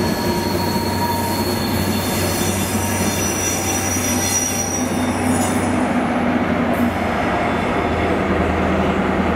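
CrossCountry InterCity 125 (HST) rolling past, its steel wheels squealing in thin, high tones over the steady low drone of the class 43 diesel power car.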